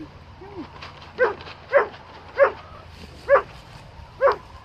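An animal giving five short calls in a steady series, about two-thirds of a second to a second apart.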